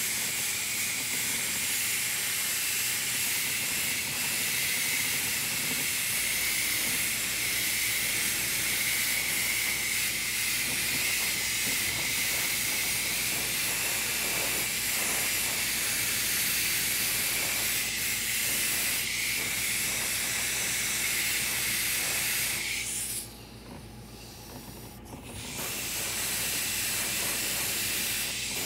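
Airbrush spraying paint in a steady hiss of air, which stops for about two seconds near the end and then starts again.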